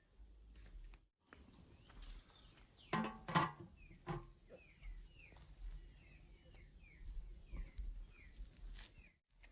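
A bird chirping over and over in short, falling notes, about two a second. Two sharp knocks come about three seconds in.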